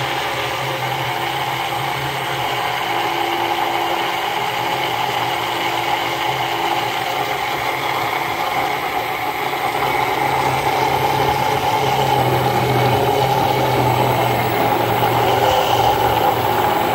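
Handheld immersion blender's motor running steadily in a tall plastic cup, blending egg yolk, mustard and olive oil as the mixture emulsifies and thickens into mayonnaise. The sound grows slightly louder as it goes on.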